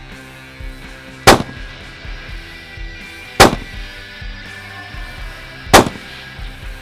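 Three rifle shots from a Browning X-Bolt bolt-action rifle, about two seconds apart, each a sharp crack with a short tail, over background music.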